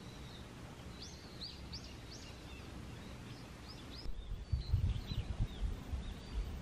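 Small birds chirping in short, high rising and falling notes over a faint outdoor background. About four seconds in, an uneven low rumble comes in on the microphone and becomes the loudest sound.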